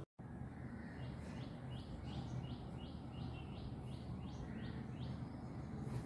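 Indian palm squirrel giving its repeated chirping alarm call: a quick series of short, high, falling chirps, about three a second, that stops about five seconds in. The call is typical of the squirrel scolding a predator, here the monitor lizard just below it.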